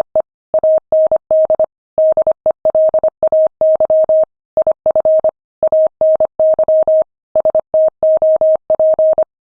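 Morse code sent at 25 words per minute: a single steady beep tone keyed on and off in dots and dashes, with short gaps between letters and words. The keying stops shortly before the end.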